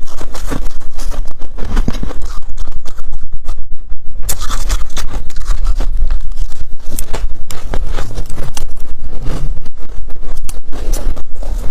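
Freezer frost crunching close to the microphone: a dense, irregular string of crisp crunches.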